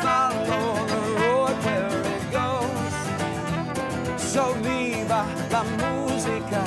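Acoustic band playing a country-style song: a man singing over a strummed acoustic guitar, with a trumpet playing.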